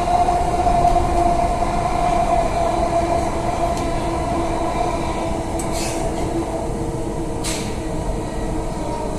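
Delhi Metro Magenta Line train running on an elevated track, heard from inside the carriage: a steady rumble with a motor whine that drifts slightly lower in pitch. Two brief clicks come near the middle and later in the stretch.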